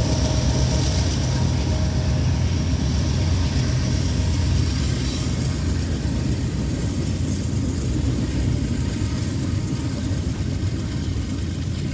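GE diesel locomotives of a double-stack container train passing with a deep engine rumble, giving way within a few seconds to the steady rolling noise of the stack cars' wheels on the rails, slowly fading.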